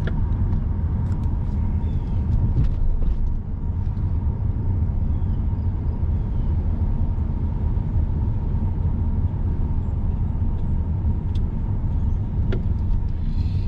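In-cabin noise of a 2005 Honda Odyssey RB1 minivan on the move: a steady low rumble of engine and tyres on the road, with a few faint light clicks.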